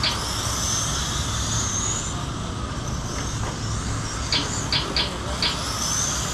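Several RC cars running laps on a pavement oval, their motors giving a high whine that rises and falls in pitch as they pass, over a steady low rumble. A few short, sharp chirps come close together about four to five seconds in.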